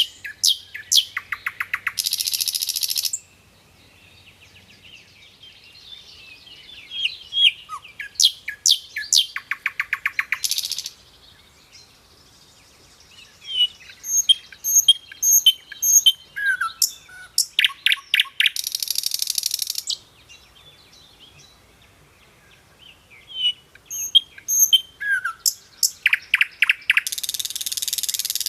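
Nightingale singing in four phrases separated by short pauses. Each phrase runs through quick whistled notes and fast runs of repeated notes, and ends in a buzzing burst.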